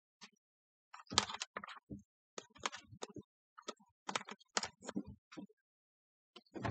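Front-loading washing machine drum tumbling during the wash: a series of irregular short splashes and soft knocks as water and wet laundry fall inside the drum.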